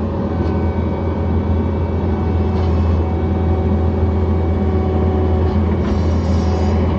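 John Deere 317 skid steer's diesel engine running at a steady speed, a constant low drone.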